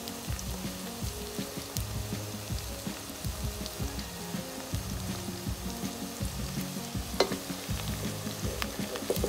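Sliced onions frying in hot oil with bay leaves and whole spices, sizzling steadily with scattered crackles. Near the end a spatula goes into the pot to stir, with a couple of sharper clicks.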